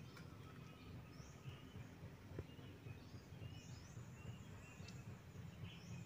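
Quiet outdoor ambience: a steady low rumble with faint, scattered bird chirps now and then.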